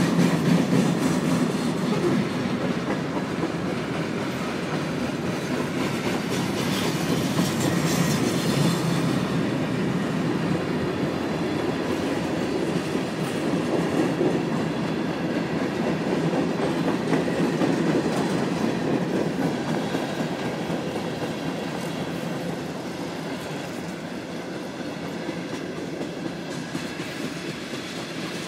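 Freight train cars rolling past at speed: a steady rumble of steel wheels on the rails with clatter over the rail joints, getting a little quieter near the end.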